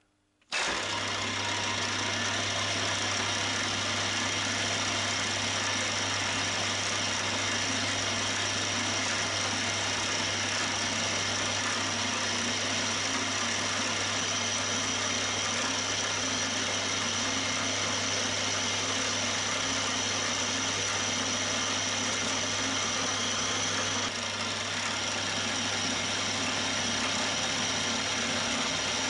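Milling machine spindle motor starts about half a second in and runs steadily with a constant hum and high whine while a 1 mm drill bores through a small brass ring; the level dips slightly near the end.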